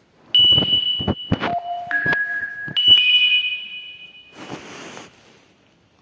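A Nokia N95's loudspeaker playing a short electronic alert tone: a few held, chime-like notes stepping between high and lower pitches, with sharp clicks among the first notes and a brief hissy burst near the end before it stops.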